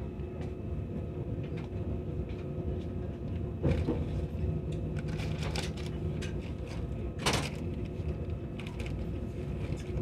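Cabin running sound of a CRH1A electric multiple unit: a steady rumble of the wheels on the track with constant tones from the VVVF traction motor drive. Two sharp knocks sound, a little before four seconds in and again past seven seconds.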